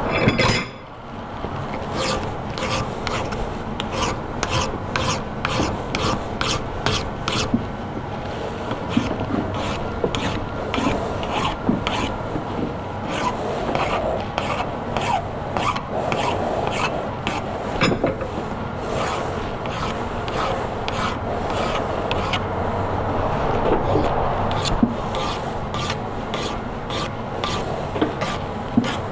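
A hand file rasping back and forth over a small piece of square steel bar stock clamped in a vise, in steady strokes at about two a second, taking the sharp corners off the edges. A single sharp clack comes just before the filing starts.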